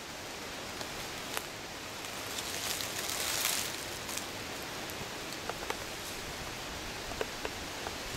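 Woodland ambience of dry autumn leaves: a steady rustling hiss with scattered faint ticks and crackles, and a louder rustle about three seconds in.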